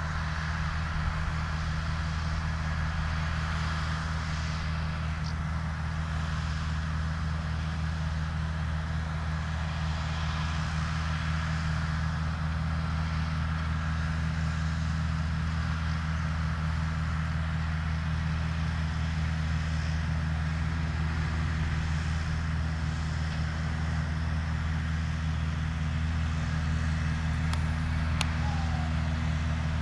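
A John Deere 3050 tractor driving a trailed forage harvester, with a Ford 6640 tractor running alongside, makes a steady low drone of engines and machinery at work in grass silage.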